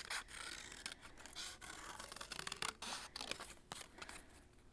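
Scissors snipping through paper in a run of quiet, irregular cuts, with light paper rustling between them.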